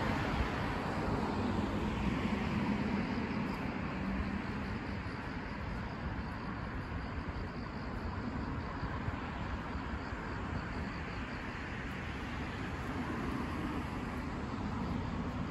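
Road traffic on a city street: vehicles going by with a steady tyre-and-engine rush, louder in the first few seconds and swelling again near the end.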